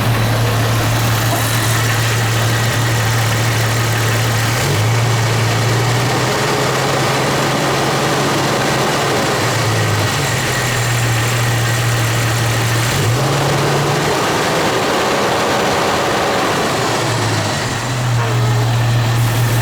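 Jeep Cherokee XJ engine idling steadily with a knock heard only at idle. The knock fades under load. It was not cured by a new exhaust manifold or by tightening the flex plate to torque converter bolts.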